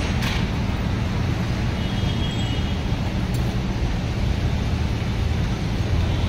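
Steady low vehicle rumble, with a faint short click about a quarter second in.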